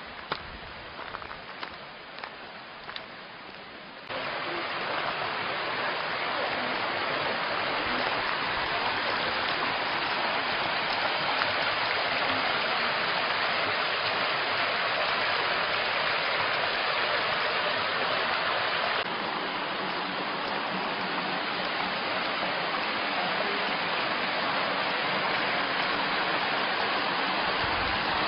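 Steady rush of water from the Șușara mountain stream, a continuous hiss with no pitch. It jumps clearly louder about four seconds in, and a few sharp knocks come in the quieter opening seconds.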